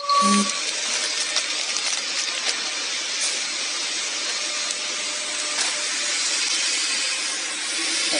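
Horizontal flow-wrap packing machine running with a steady hiss and whir, with a few sharp clicks scattered through. A brief tone sounds at the very start.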